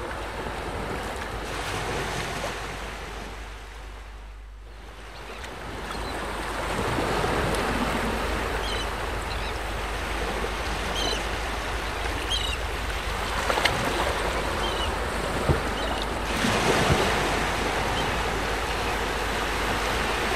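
Steady rush of waves and wind, dipping briefly about four seconds in and swelling again, with a few faint high chirps in the middle and a few light knocks in the second half.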